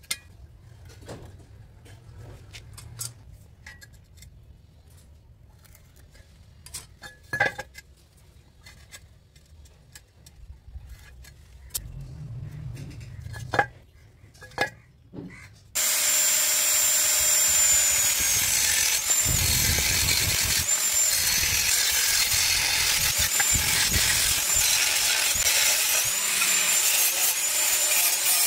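Light taps and clicks of a steel square and marker on a rusty square steel tube, with a few sharper knocks. About halfway through, an angle grinder with a cutting disc starts abruptly and cuts into the steel tube: a loud, steady grinding hiss with a high whine that wavers.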